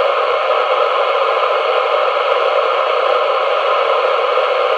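Icom ID-5100 mobile FM radio hissing loudly and steadily from its speaker with the squelch fully open, tuned to the AO-85 satellite downlink: receiver static, because the satellite signal is too weak to break the squelch.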